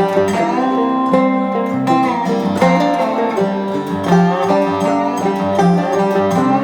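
Background music: upbeat plucked-string tune in a bluegrass style, banjo and guitar, with quick picked notes.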